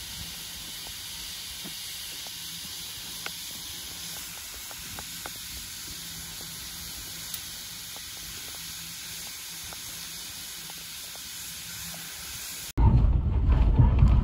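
Steady hiss of steam escaping from a standing steam locomotive, with a few faint ticks. Near the end it cuts off suddenly to a much louder low rumble.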